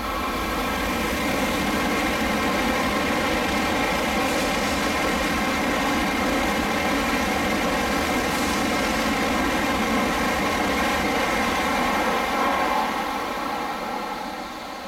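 N700-series Shinkansen train passing through the station at speed without stopping: a steady rushing roar of wheels on rail and rushing air. It builds over the first second or so, holds, and fades near the end as the tail of the train goes into the tunnel.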